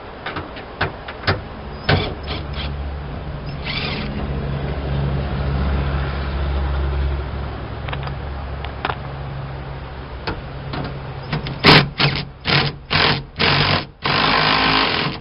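Tool work on a van's rear hatch: scattered sharp clicks and knocks over a steady low hum. About three-quarters of the way through come several short, loud, noisy bursts, then a longer one of about a second near the end.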